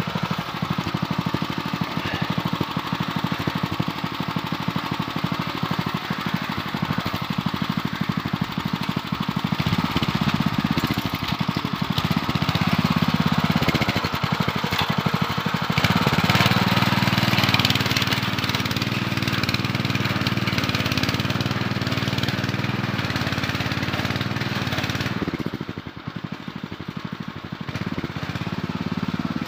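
Engine of a Zimbru 6559 7 HP walk-behind tiller running steadily under load as it pulls a plough through hard ground caught with lucerne roots. It grows louder for a stretch in the middle, then drops suddenly to a quieter level near the end as the machine moves away.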